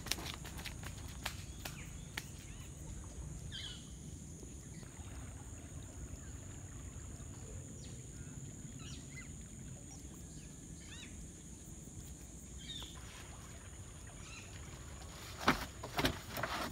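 Quiet roadside ambience: a steady high-pitched insect drone with a few faint bird chirps over a low rumble. Several sharp clicks and knocks near the end.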